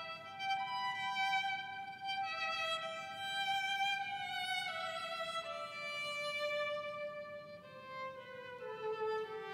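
Violin playing a slow melody of long bowed notes that step from pitch to pitch. The line moves down to lower notes near the end.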